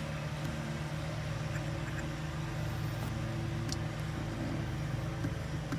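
Car engine idling steadily, a low even hum heard inside the cabin, with a few faint clicks.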